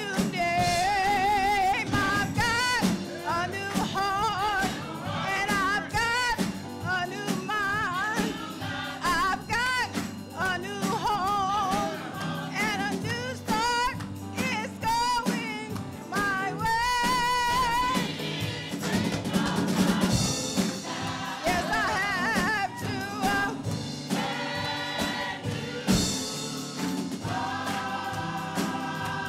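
Gospel choir singing with upright piano and drum kit accompaniment, the melody carried with strong vibrato. Near the end the voices settle into long held notes.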